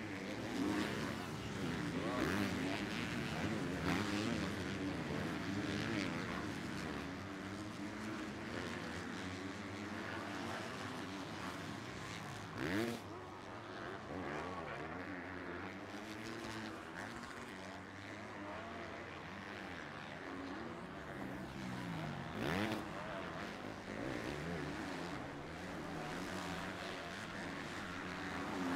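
Several MX2-class 250cc four-stroke motocross bikes racing, their engines revving up and falling away over and over as they work through the gears. One bike passes louder and closer about halfway through, and another later on.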